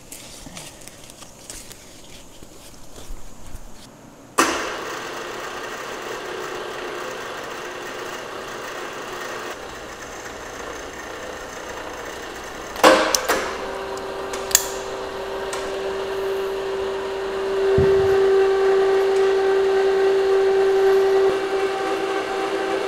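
Lifting-sling hardware clinking faintly, then a steady machine hum from about four seconds in. About thirteen seconds in comes a clunk, and an electric chain hoist motor runs with a steady whine, louder in the later seconds, as it lifts the heavy steel bar.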